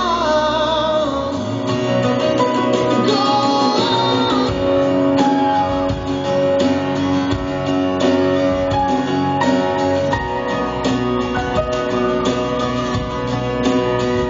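Live acoustic band music: acoustic guitar and electric bass playing, with a sung note wavering in vibrato near the start.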